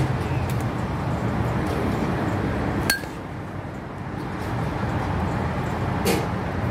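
A metal softball bat hits a machine-pitched softball about three seconds in with a sharp, ringing ping. Other sharp knocks come at the start and about a second before the end, over a steady low hum.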